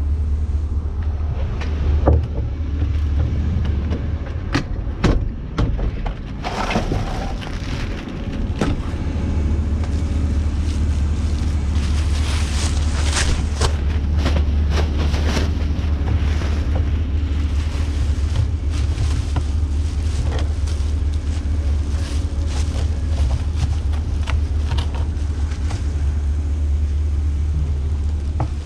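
Steady low rumble of a Nitehawk sweeper truck's engine running, with rustling of a plastic trash bag and scattered knocks and clicks as a trash can is handled, busiest between about 6 and 20 seconds in.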